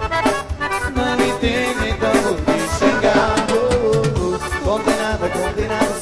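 Forró band playing an instrumental passage live, an accordion carrying the melody over a steady drum beat.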